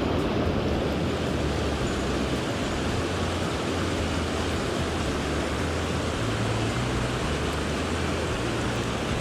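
Steady rushing of a mountain stream swollen by recent rain, running high and fast.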